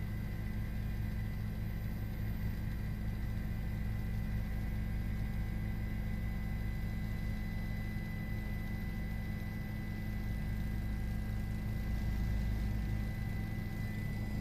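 Steady low mechanical drone with a few faint, steady high-pitched tones above it, holding an even level.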